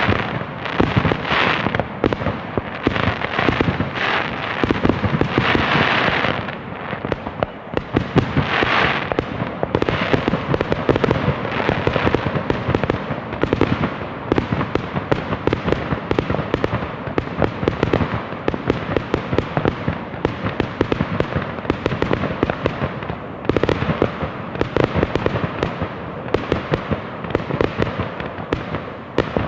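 Fireworks going off without pause: a dense barrage of bangs and crackling, with surges of crackle mostly in the first nine seconds or so.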